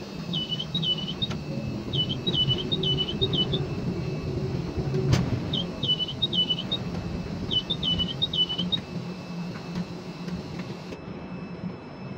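Ship-to-shore container crane's hoist and trolley machinery running with a steady low hum as the spreader lowers a container. Over it come four short groups of high, dipping squeaks, and a single sharp click about five seconds in.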